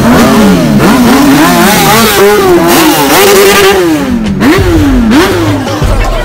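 A vehicle engine, motorcycle-like, revving up and down over and over, its pitch rising and falling irregularly, with a deeper rumble joining in near the end.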